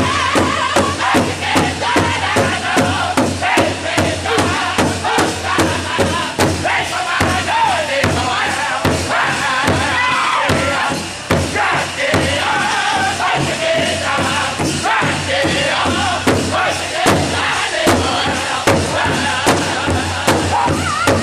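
Powwow drum group singing a contest song: several men singing in high voices together over a steady beat struck on one large shared drum.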